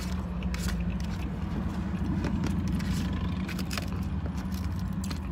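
Plastic fork scraping and clicking against a plastic takeout bowl, a few sharp clicks, over the steady low hum of a car idling.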